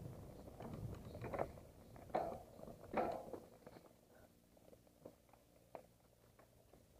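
Mountain bike rolling over a rough, leaf-littered dirt trail: knocks and rattles of the bike over bumps, with a few sharp knocks in the first three seconds, then quieter rolling with occasional clicks.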